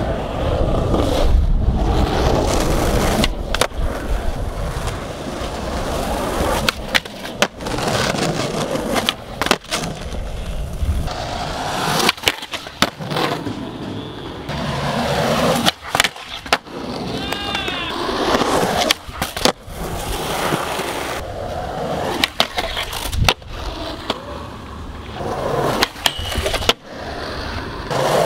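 Skateboard wheels rolling on concrete, broken by many sharp clacks as the board is popped and lands. Near the end the board slides along a metal handrail.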